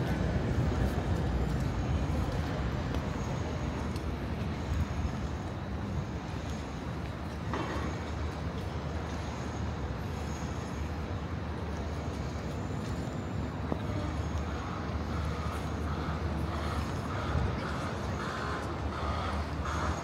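Steady low rumble of urban vehicle traffic, heaviest at the start, with one short sharp knock about seven and a half seconds in and faint distant voices in the second half.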